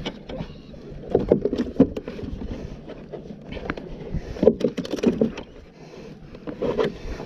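Irregular knocks, bumps and rustles aboard a plastic sit-on fishing kayak as the angler shifts about in the seat.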